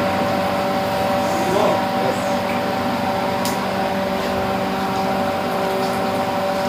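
Steady electric machinery hum with two held mid-pitched tones over an even rushing noise, from the spray booth's equipment.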